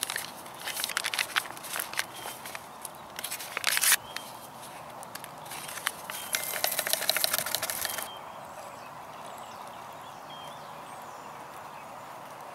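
Crinkling and rustling of a hot cocoa packet being handled and opened, in two stretches of a few seconds each, the second as the cocoa mix is tipped out of it.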